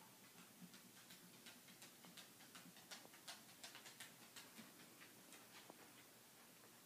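Faint, irregular clicking of a soft-coated wheaten terrier's claws on a hardwood floor as it walks, several clicks a second, stopping near the end.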